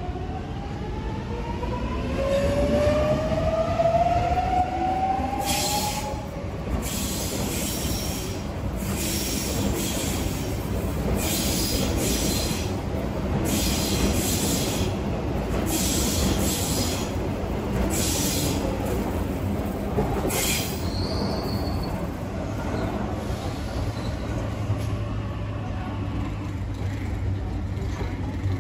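Double-deck electric suburban train pulling away: its motors whine, rising in pitch as it gathers speed, then its wheels give a steady run of loud clicks, roughly one every second or so, as they pass over rail joints. A brief high squeal follows near the end, then a low steady hum in the last few seconds.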